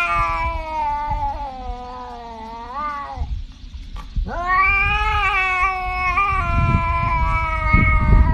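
Tabby cat meowing in two long, drawn-out calls whose pitch wavers, with a short break about three seconds in.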